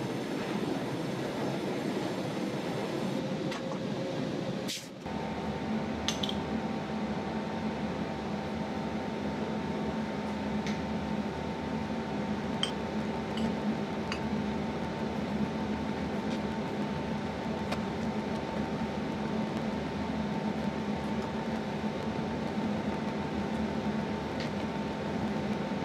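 Gas torch flame hissing for about five seconds while annealing a silver blank, cut off abruptly. After that comes a steady mechanical hum, likely a powered rolling mill running, with a few light clicks.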